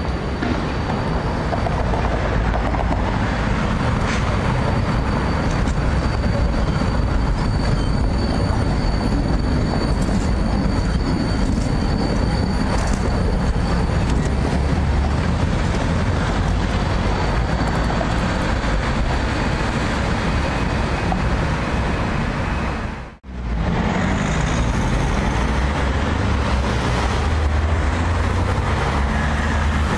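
Vienna street trams running on street track, a low-floor ULF tram passing close and then an E2 tram approaching: steady rolling noise of wheels on rails with a faint high whine in the first half. The sound drops out for an instant about three quarters through, at a cut in the footage.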